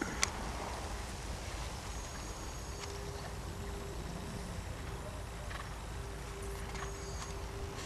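A horse's hooves striking a sand arena surface as it is ridden, with a sharp click just after the start and a few faint, irregular ticks, over a steady low rumble.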